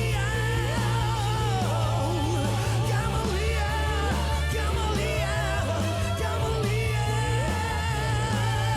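A live band plays a pop-rock song, with a lead vocal singing over sustained bass notes.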